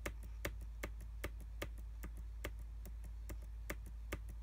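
Computer keyboard keys clicking in quick, uneven succession, as when stepping through photos on screen, over a low steady hum.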